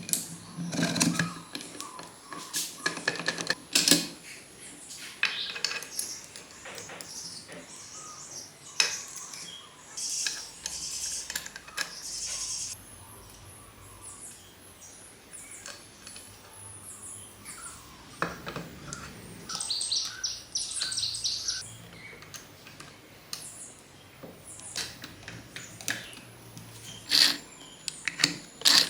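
Metal tools and small engine parts being handled: scattered clinks and knocks, with a quick run of ticks about two-thirds of the way through.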